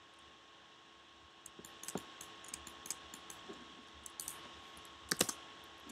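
Faint computer keyboard keystrokes and mouse clicks, scattered irregularly over a low steady hiss and hum, with a quick cluster of louder clicks about five seconds in.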